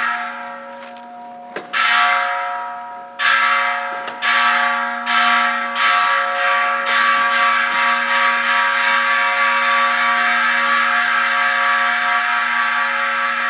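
A Buddhist ritual bell struck again and again, the strokes coming closer and closer together until they run into one continuous ringing, with several tones sounding throughout.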